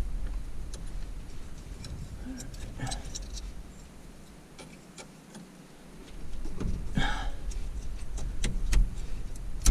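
Scattered light clicks and taps of small metal parts and hand tools being handled, over a low rumble, with a louder rustle about seven seconds in.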